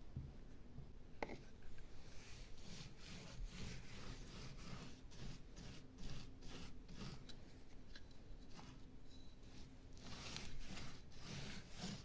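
Irregular rubbing and scraping of hands working building materials, with a sharper knock about a second in.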